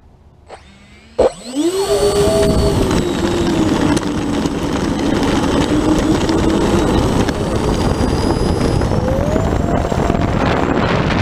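Electric ducted fans of an E-flite 64mm A-10 model jet: a sharp click about a second in, then the fans spool up with a rising whine and run at a loud, steady high whine as the model rolls on its takeoff run. The pitch climbs again near the end.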